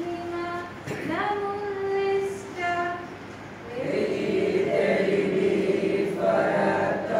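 A mixed group of students singing together from song sheets, holding long notes that step in pitch. About halfway through the singing grows fuller as more voices join in.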